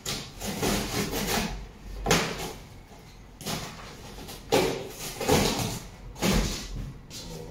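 Wooden panel of a shipping box scraping and rubbing against the box as it is worked loose by hand, in about six separate bursts.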